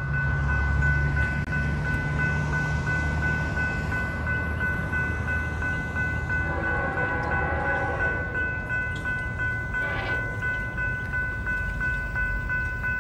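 A Norfolk Southern freight train approaching out of sight, with a low rumble throughout and its locomotive horn sounding faintly from about six seconds in. A steady, rapidly pulsing ringing from a grade-crossing bell runs throughout.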